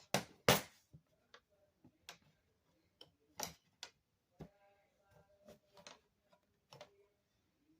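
Small tools clicking and tapping against a phone's parts during disassembly: irregular sharp clicks, the two loudest in the first second, then a dozen fainter ones.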